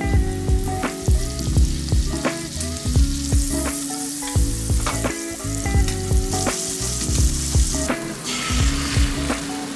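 Butter melting and sizzling in a hot nonstick frying pan, the hiss growing louder about three seconds in and dying back near the end. Under it runs background music with a steady beat.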